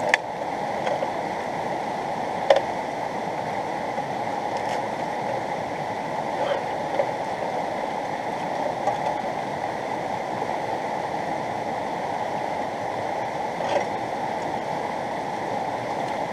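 Fast mountain river rushing steadily over rocks, with a few light knocks standing out against it, one about two and a half seconds in and one near the end.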